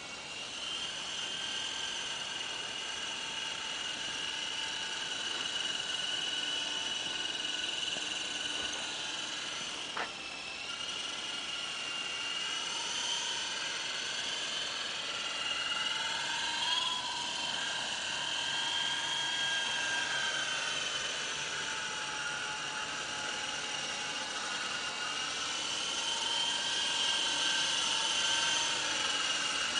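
Radio-controlled MD 530 scale model helicopter in flight: a steady high whine from the motor and rotors that wavers a little in pitch as the model manoeuvres. There is a single sharp click about ten seconds in.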